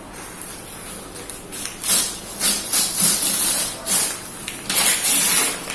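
Crinkly parcel packaging rustling and crackling as it is unwrapped by hand, in irregular bursts that grow louder from about two seconds in.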